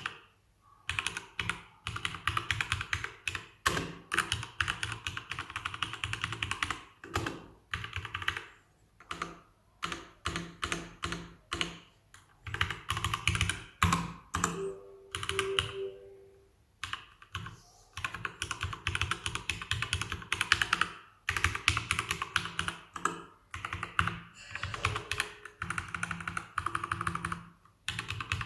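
Fast typing on a Keychron K2 keyboard with Gateron Brown tactile mechanical switches, in quick runs of keystrokes broken by short pauses.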